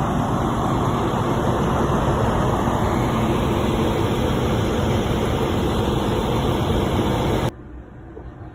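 Train rumbling at the station platform, a loud steady noise that cuts off suddenly near the end.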